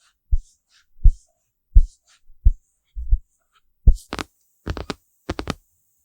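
Deep soft thumps about every 0.7 s, like slow taps, with faint light swishes between, then a quick run of sharp clicks near the end.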